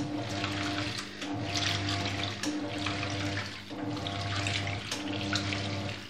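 Hoover top-loading washing machine agitating a wash load: the motor hums and water and clothes swish, the sound dipping briefly about every second and a quarter as the agitator reverses direction.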